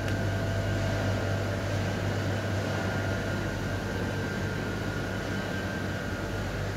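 Steady low mechanical hum of kitchen equipment, with a faint constant high-pitched whine over an even hiss.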